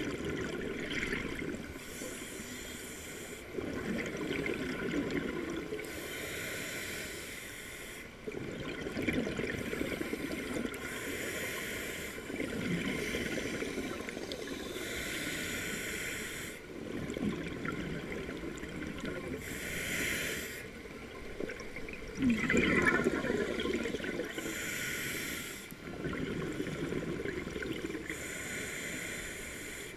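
Scuba diver breathing through a regulator underwater: a hissing inhale alternates with a gush of exhaled bubbles, roughly every four seconds, about seven breaths in all.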